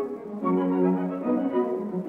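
Orchestral film score led by bowed strings, playing held notes that move through a slow melody.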